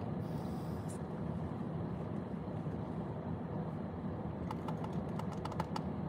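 Steady low rumble of a car idling, heard from inside its cabin, with a brief hiss near the start and a quick run of light clicks about four and a half seconds in.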